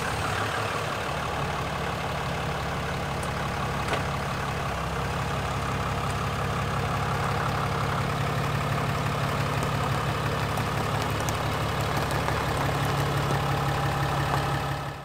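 Cummins turbo-diesel pickup engine idling steadily.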